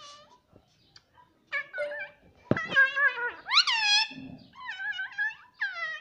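Rose-ringed (Indian ringneck) parakeet vocalizing: a string of high, pitched calls starting about a second and a half in, one sweeping sharply upward near the middle.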